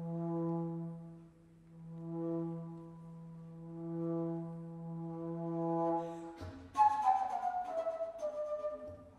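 Bass flute holding a low, swelling and fading note, about four swells. About six and a half seconds in a sharp attack starts a quick descending run of breathy notes.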